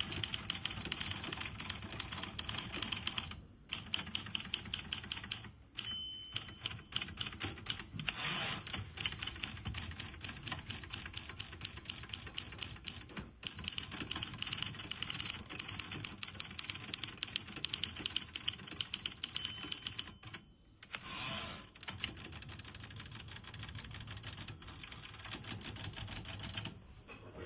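Remington Quiet-Riter manual typewriter being typed on at a quick, steady pace, several keystrokes a second with brief pauses. Twice a short ring sounds, the margin bell at the end of a line, each followed a couple of seconds later by a short sliding rush, the carriage return.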